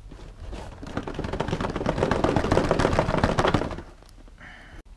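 Plastic packaging crackling and rattling as it is handled and pulled apart. It is a dense, rapid crackle that builds over about a second, holds for a couple of seconds, then stops, followed by a brief soft scrape.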